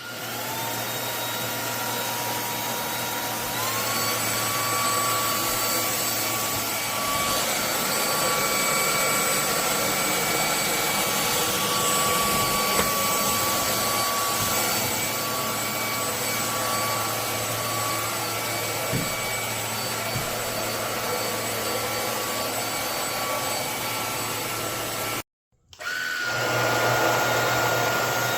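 Lubluelu cordless stick vacuum's brushless motor running, a steady rushing noise with a high whine. The whine rises as the motor spins up and steps higher about three and a half seconds in. Near the end the motor cuts out for half a second and starts again.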